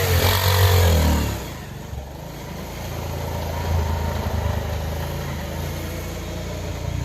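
Motorcycle engine revving, its pitch rising and falling for the first second or so, then running more quietly and steadily under way.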